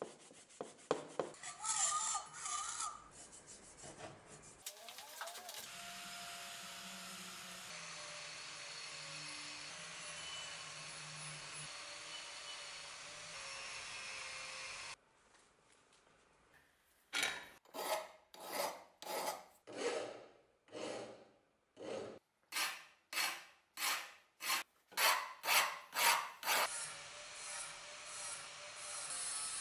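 A cloth rubs over a steel axe head, then an angle grinder runs steadily against it. After that comes a series of about fifteen evenly spaced rasping strokes, like a hand file on the steel, and near the end the grinder runs steadily again.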